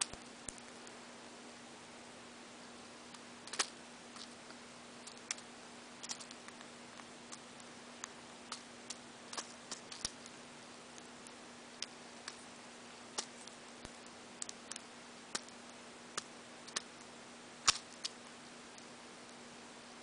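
Budgerigar eating seeds inside a paper cup: irregular sharp clicks and taps of its beak cracking seeds and knocking the cup, a few of them louder.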